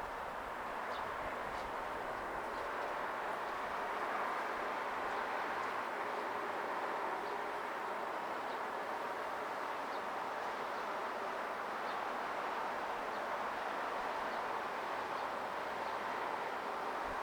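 Steady outdoor background noise, an even hiss and rumble with no bell strokes in it, with a few faint short high chirps scattered through.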